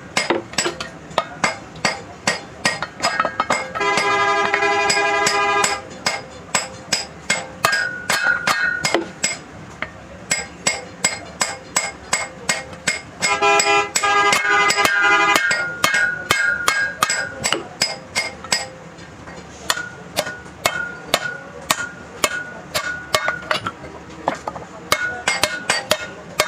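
Hammer striking steel parts of a truck driveshaft's universal joint, blow after blow at about two or three a second, each strike ringing. Twice a steady whining tone lasts about two seconds over the hammering.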